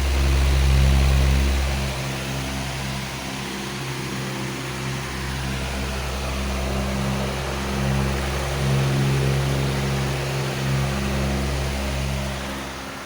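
A powerful electric fan running steadily: an even rush of air with a low motor hum that swells and fades.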